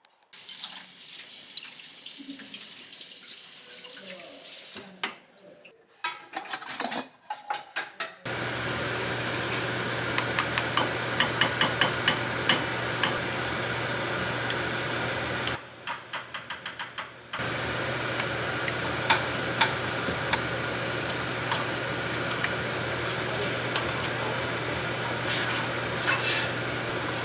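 Kitchen tap running into a sink, with dishes and cutlery clinking. The water starts suddenly about eight seconds in and stops briefly for a couple of seconds in the middle. The first part holds only scattered clinks and handling sounds.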